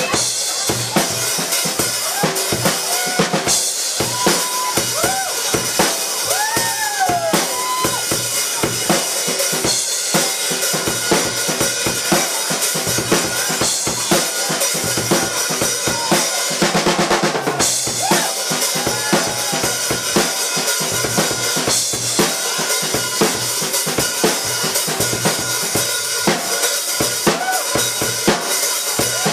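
Acoustic drum kit played in a solo: rapid bass drum, snare and tom hits under washing cymbals, with a very fast drum roll about 17 seconds in.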